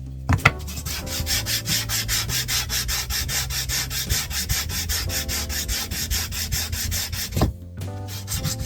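Sandpaper rubbing on a hardwood board in quick, even back-and-forth strokes, about five a second, during the final smoothing of the board flat. A couple of sharp knocks come at the start and one more shortly before the strokes stop near the end.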